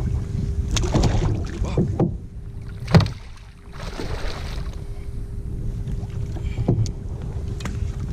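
Kayak on open water: wind buffeting the microphone and water lapping at the hull, with a few sharp knocks, the loudest about three seconds in, over a faint steady hum.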